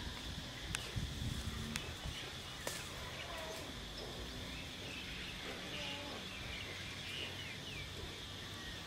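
Outdoor ambience: scattered short chirping calls over a steady high hiss, with a few sharp clicks in the first three seconds.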